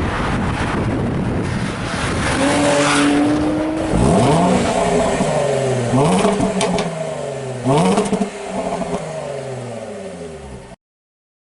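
Jaguar XE's supercharged V6 on its stock exhaust: a rougher run, then a steady idle, then three sharp revs about two seconds apart, each rising fast and falling back, with a few sharp cracks as the revs drop. The sound cuts off suddenly near the end.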